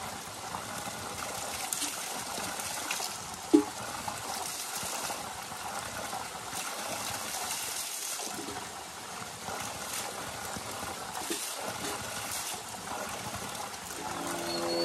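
Steady splashing of spring water pouring from a pipe spout onto stones. About three and a half seconds in there is a single sharp knock.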